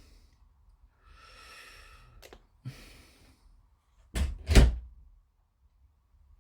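A breath, then a light click and a knock, and two sharper knocks close together about four seconds in: small objects handled and set down on a work surface during hobby model assembly.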